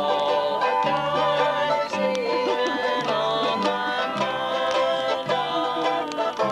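Acoustic string-band music: plucked strings playing over a steady low bass line.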